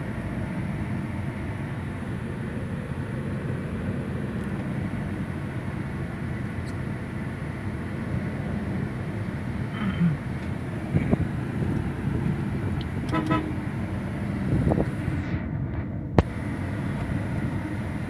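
Steady vehicle rumble heard from inside a car cabin, with a short horn toot about two-thirds of the way through and a single sharp click near the end.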